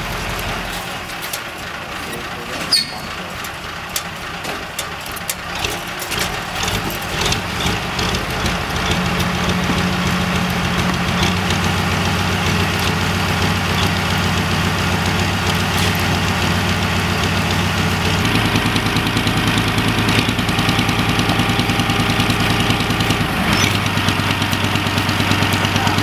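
Heavy diesel engine of a crane running as it lowers a precast concrete bridge section, its engine speed stepping up and down several times under the load. A few sharp clanks and knocks in the first several seconds.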